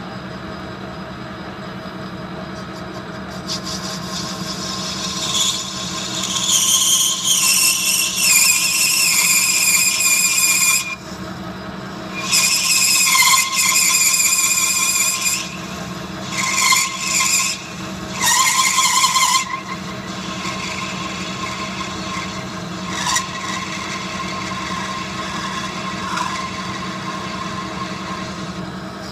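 Thin parting blade cutting off a brass part on a running metal lathe: a high-pitched squeal comes in four bursts between about 3 and 20 seconds in, the longest first, over the lathe's steady running hum, which goes on alone after the cutting stops.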